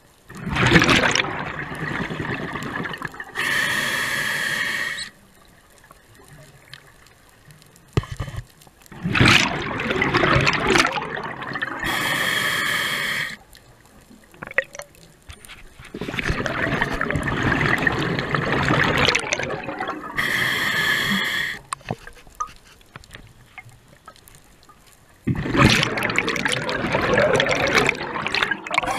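A scuba diver breathing through a regulator. Four long gurgling rushes of exhaled bubbles alternate with three shorter, hissing inhales through the demand valve, with quiet pauses between breaths.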